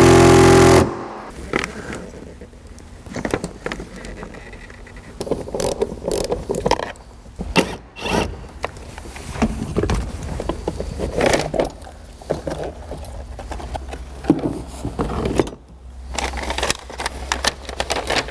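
A cordless power tool runs steadily, spinning out the seat belt's lower anchor bolt, and cuts off about a second in. After that come scattered metallic clinks, rattles and scrapes of hand tools and seat belt hardware as work moves to the seat mounting bolts.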